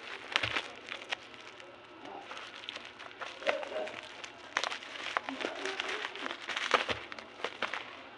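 Packaging being handled and opened: irregular crinkling, rustling and small clicks of wrapping.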